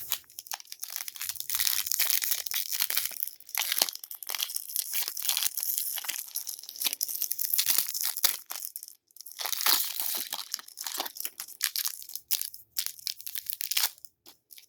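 Crinkling and crackling of plastic card-pack wrapping being handled, a dense run of small crackles with a short pause about nine seconds in.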